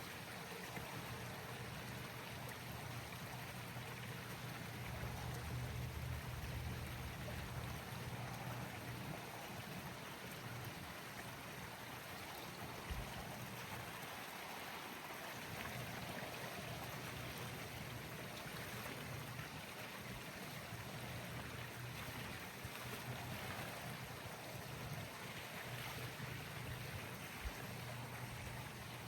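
Steady rush of water with a low motor hum, from a pool being vacuumed with the pump drawing water through the hose.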